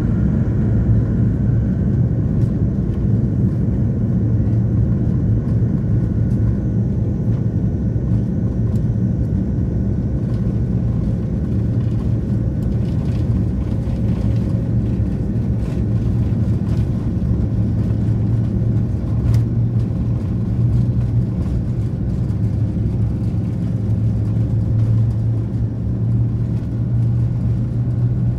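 Jet airliner heard from inside the cabin on its takeoff roll: a steady, loud rumble of engines at high thrust and wheels on the runway, with a few faint clicks and rattles.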